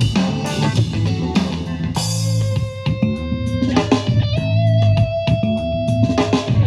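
A song with electric guitar, bass and drums playing through a JBL Clip 4 portable Bluetooth speaker. Steady drum hits give way about two seconds in to sustained guitar notes, one held for about two seconds near the end.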